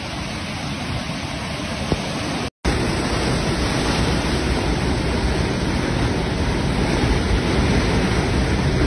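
Steady rush of fast-flowing floodwater, an even noise with no distinct events; it drops out briefly about two and a half seconds in and resumes louder.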